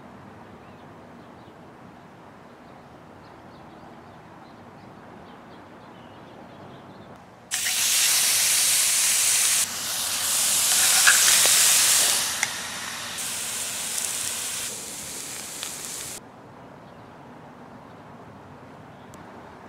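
Meat frying in a hot cast-iron skillet: a loud, even sizzle comes in abruptly about a third of the way in and runs in several spliced stretches until past the middle, then drops back to a faint steady hiss.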